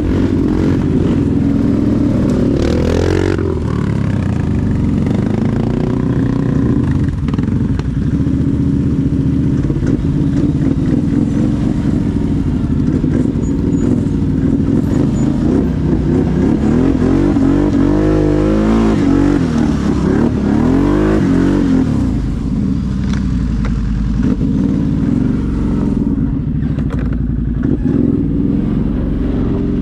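ATV engine running while riding. Its pitch rises and falls with the throttle, most of all about two-thirds of the way through.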